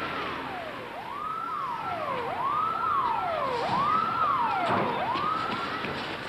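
Fire engine siren wailing in repeated cycles, each a quick rise in pitch followed by a slower slide down, about once every second and a quarter.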